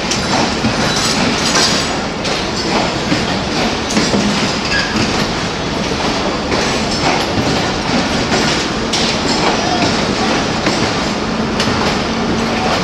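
Pakistan Railways passenger coaches rolling past a departing train, their wheels clattering over the rail joints with a steady rumble and frequent irregular knocks.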